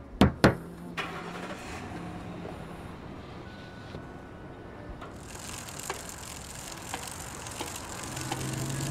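Two sharp thumps close together, then a car running, its road noise growing louder about five seconds in.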